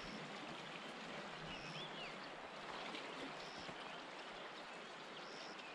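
Faint, steady rush of the flooded Orange River flowing past, with a few faint high chirps about two seconds in.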